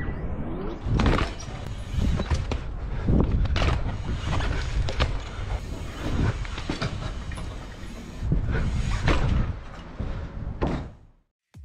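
Bicycle riding over wooden deck planks: a rumbling clatter of the tyres on the boards, with irregular knocks and bumps throughout. The sound cuts off sharply near the end.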